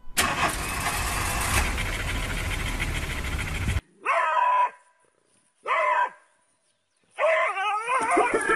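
A loud, even rushing noise for nearly four seconds. Then a small dog gives two short yelps, each falling off at the end, and a longer wavering whine near the end.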